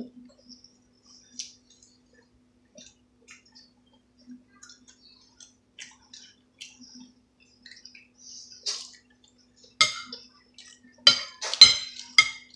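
Metal spoon clinking and tapping against dishes: scattered light clicks, then several louder, ringing clinks close together near the end.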